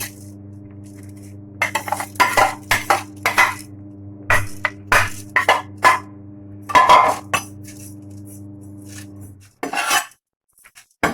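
A spoon clinking and scraping against a cooking pot as rice is spooned in layer by layer: a dozen or so quick strikes in the first seven seconds, over a steady low hum that cuts out near the end.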